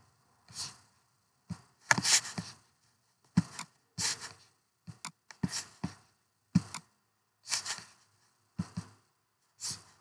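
About a dozen short sharp knocks and clicks at irregular intervals, each followed by a brief hissy rustle, with silence between them.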